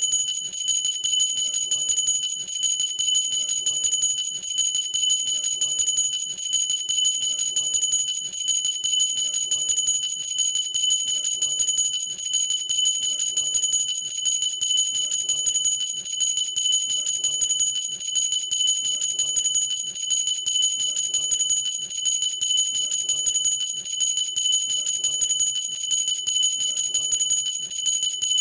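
A cut-crystal glass hand bell shaken continuously, its clapper striking rapidly against the glass and keeping up a steady, high, bright ringing.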